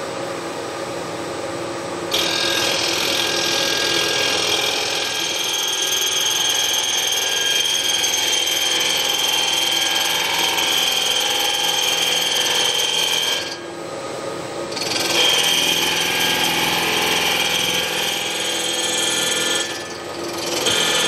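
A milling machine's spindle runs, then a hardened end mill starts cutting a Porsche 911 cylinder head's hardened valve seat insert with a steady high-pitched whine, about two seconds in. The cut stops briefly twice, then resumes. The seat is being machined thin so that it shrinks and pops loose from the aluminium head.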